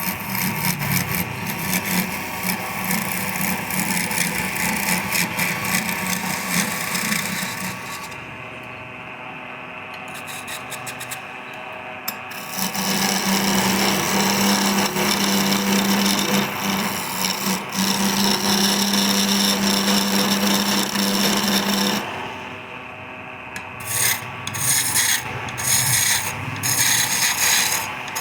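Wood lathe running with a steady hum while a hand-held tool rubs and scrapes against the spinning wood. The scraping eases off about eight seconds in and comes back louder and steadier some four seconds later. Near the end it breaks into short, separate strokes.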